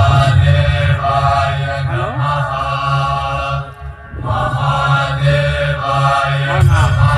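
Devotional mantra chanted by a group of voices over music, with a deep low drone underneath. The chanting breaks off briefly about four seconds in, then starts again.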